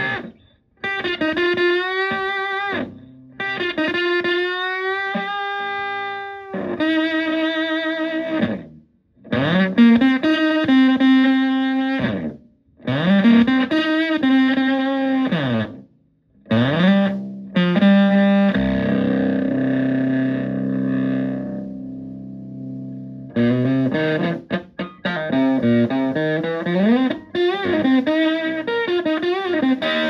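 Electric guitar played through a Tone Bender MK1.5-style fuzz pedal into a Fender Twin Reverb-style amp: fuzzy single-note lead phrases with string bends and vibrato, separated by short pauses. Around the middle one note is held and slowly decays, followed by quicker notes.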